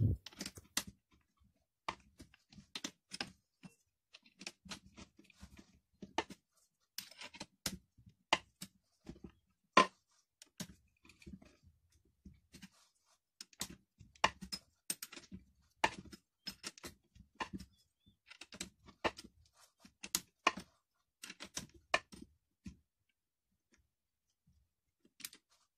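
Irregular small metallic clicks and taps from a 5 mm hex key being fitted into and turned in the axle screw of a children's scooter wheel.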